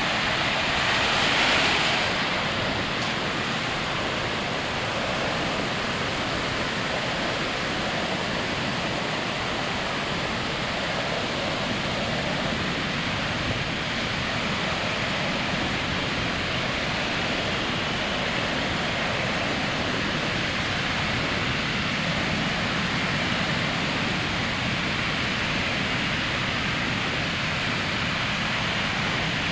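Ocean surf washing onto a sandy beach: a steady rush of breaking waves, with one wave swelling louder about a second in.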